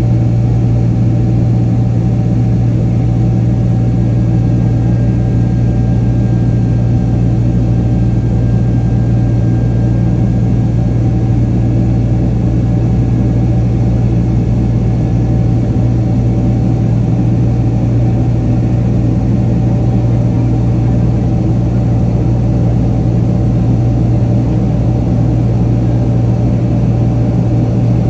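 Boeing 767-300ER turbofan engines heard from inside the cabin over the wing during the climb: a loud, steady deep drone with a faint, steady higher whine above it.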